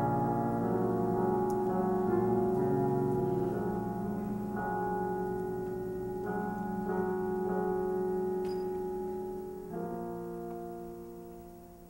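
Slow piano music of held chords, a new chord coming in every couple of seconds, fading out near the end.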